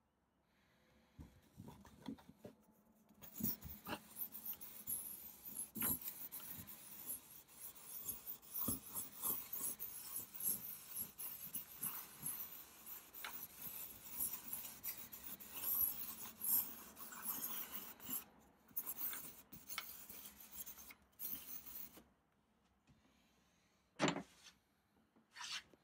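A dark drawing stick scratching and rubbing across a stretched canvas in quick, looping scribbled strokes. The scribbling stops about three-quarters of the way through, then two short strokes come near the end.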